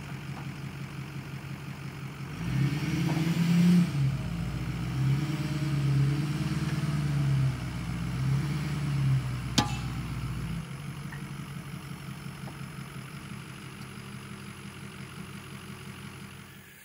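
Pickup truck engine pulling a loaded boat trailer: a low steady hum that rises about two seconds in, swelling and easing as the truck accelerates across the field, then settles back to a quieter run about ten seconds in. A single sharp click sounds near the ten-second mark.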